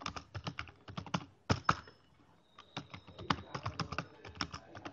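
Computer keyboard keys clicking as commands are typed, in quick runs of keystrokes with a pause of about a second in the middle and a couple of louder strokes about a second and a half in.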